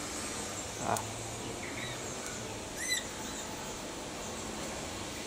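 Aviary birds calling over a steady background: a short arched chirp about three seconds in and fainter calls before it, with a brief lower sound about a second in.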